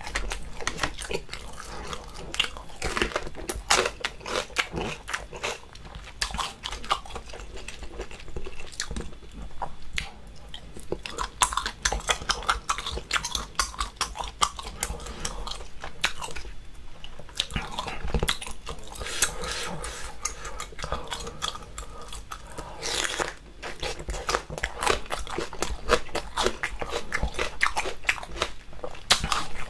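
Close-miked eating of spicy braised seafood: wet, chewy mouth sounds from octopus, broken by many short crunches from biting into a fresh green chili pepper.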